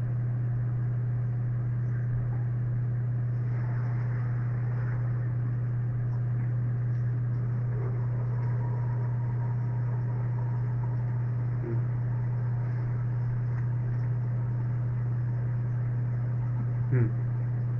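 Steady low hum with a faint hiss, the background noise of the recording, with no speech. A short faint sound about twelve seconds in and a brief louder blip near the end.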